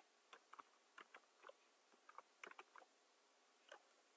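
Near silence broken by faint, scattered computer keyboard clicks: a few light keystrokes with pauses between them, a little busier about two to three seconds in.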